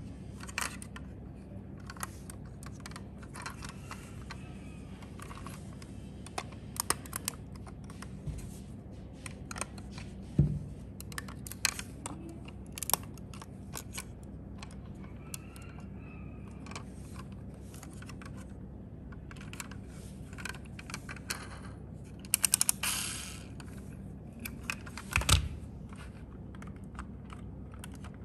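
Small clicks and taps of a die-cast metal toy van being handled: its opening doors snapping open and shut and the model turned over in the fingers. Scattered single clicks, with a quick run of louder clicks near the end.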